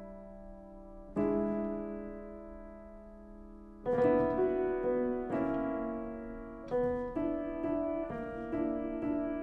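Solo piano music: a chord struck about a second in and left to fade, then another chord near four seconds in, followed by a slow melody of single notes.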